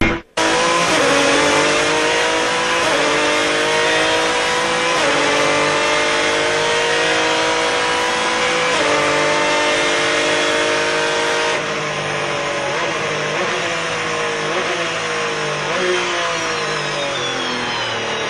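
Ferrari 550 Maranello GT1 race car's V12 heard onboard, pulling hard up through the gears with three upshifts. From about twelve seconds in it slows, its note falling with several short rises as it downshifts.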